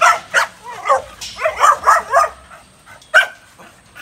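Bully-breed dog barking in short, sharp barks: a couple at the start, a quick run of barks around the middle, and one more near the end.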